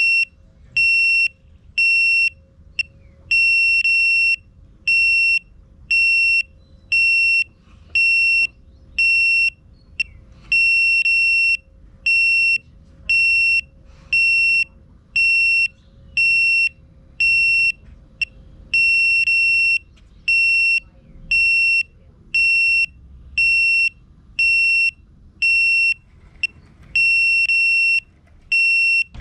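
Electronic warning beeper in the FPV drone setup sounding a steady string of short, high beeps, a bit more than one a second: a low-battery alarm as the flight battery runs out.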